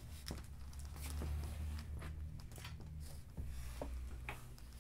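Quiet room tone with a steady low hum, broken by a few faint knocks and shuffles of movement on stage.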